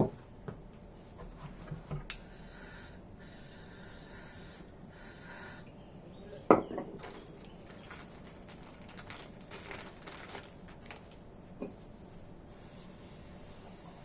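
Tools and metal parts being handled and set down: scattered clinks and knocks, the loudest a sharp knock about six and a half seconds in.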